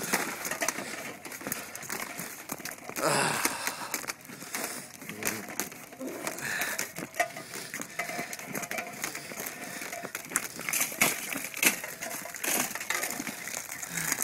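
Footsteps crunching through thin swamp ice that cracks and breaks underfoot under a person's weight: an irregular run of sharp cracks and crunches, thickest about three seconds in.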